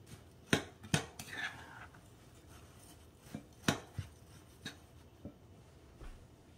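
Metal spoon clinking and scraping against a glass mixing bowl while stirring a dry oat-and-flour crumble mixture: a handful of sharp, irregular clicks with a soft gritty scrape between them.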